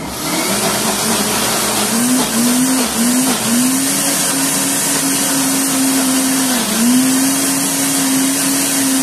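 Philco countertop blender running at speed, blending thick carrot cake batter. Its motor hum sags in pitch and recovers several times, around two to three and a half seconds in and again near seven seconds, as the load changes.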